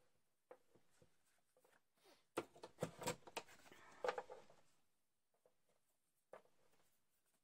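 Quiet handling of card stock at a rotary paper trimmer: a few light clicks, then a couple of seconds of rustling and clicking as the trimmer's cutting head is moved along its rail, and one more click near the end.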